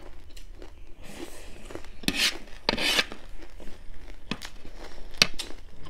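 Eating a dry, crunchy chicken chatpate: rasping, crunchy bursts, the loudest about two and three seconds in, and a few sharp clicks.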